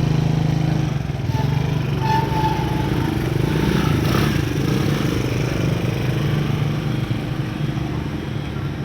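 Diesel engine of a piece of heavy earthmoving machinery running steadily, with a brief clatter about four seconds in.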